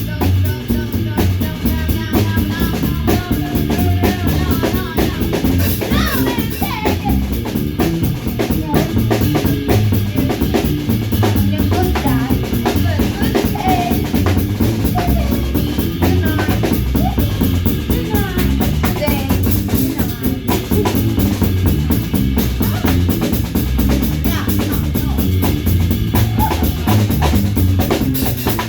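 A band playing live, with a drum kit keeping a steady beat on bass drum and snare over a heavy low end. A wavering melodic line sounds above the beat.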